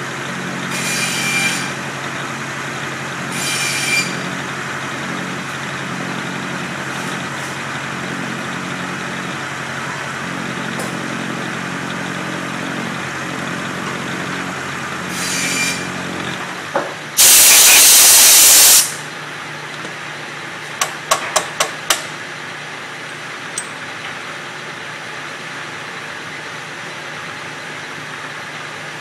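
Bridgeport vertical milling machine running, an end mill cutting a metal block: a steady motor hum with a few short bursts of hiss. About seventeen seconds in comes a very loud rush of noise lasting about two seconds, then a few sharp clicks, and the machine runs on with a lower, quieter hum.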